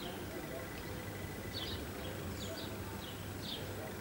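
A few faint, short bird chirps, scattered irregularly, over a steady background hiss and low hum.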